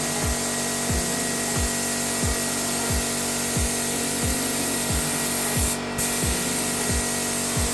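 Paint spray gun hissing steadily as it lays high-fill undercoat primer on a car body, released for a moment about six seconds in. Background music with a steady thudding beat plays underneath.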